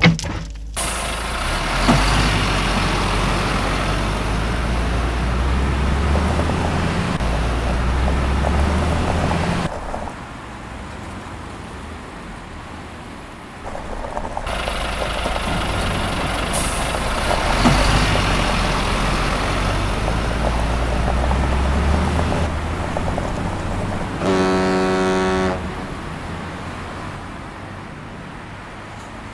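Heavy truck engine running with a low rumble, which drops back to a quieter idle for a few seconds in the middle and then picks up again. Near the end a single horn toot sounds for about a second.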